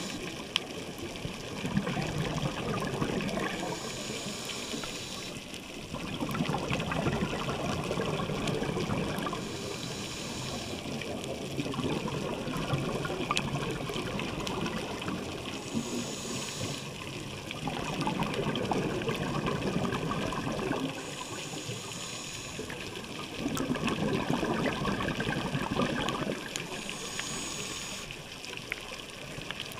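Scuba diver breathing through a regulator underwater: a short hissing inhale about every six seconds, each followed by a longer bubbling rush of exhaled air.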